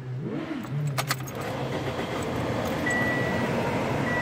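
Keys jangle in the ignition with sharp clicks about a second in. Then the newly installed TYC replacement blower in a 2007 Toyota Corolla starts, and air blows steadily through the dash vents: the new blower motor is working. A car warning chime beeps twice near the end.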